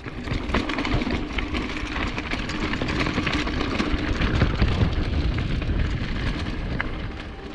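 Mountain bike rolling fast over gravel, tyres crunching and rattling on loose stones, with heavy wind buffeting on the action camera's microphone. The noise starts about a third of a second in and eases off near the end.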